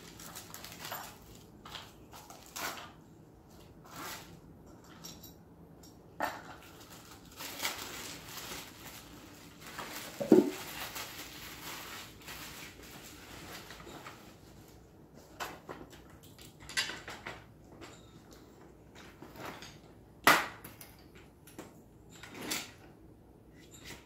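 Mac Sports Beach Day folding chaise lounge chair being handled and unfolded: scattered clicks, clinks and knocks from its metal frame and fittings. The loudest knocks come about ten and twenty seconds in.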